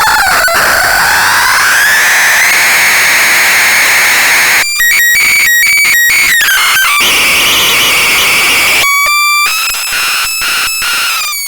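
Belzebulon B giving out harsh electronic noise with a whistling tone that glides slowly upward over the first few seconds. Around the middle, and again near the end, the sound stutters rapidly on and off over a steady high tone.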